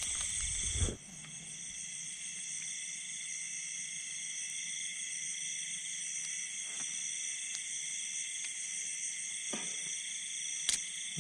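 Steady chorus of insects such as crickets, several high chirring bands held evenly throughout, with one sharp click near the end.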